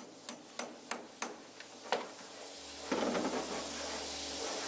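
Light hammer blows on metal, evenly spaced at about three a second, stopping about two seconds in. They are followed by a steady rushing noise from about three seconds in.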